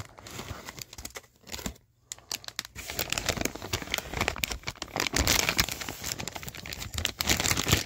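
Clear plastic bag of model-kit parts crinkling as it is handled, with a short pause about a second and a half in.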